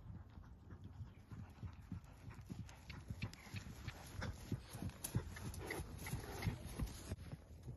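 Hoofbeats of horses cantering on dry grass turf, in quick irregular groups of beats, louder from about four seconds in.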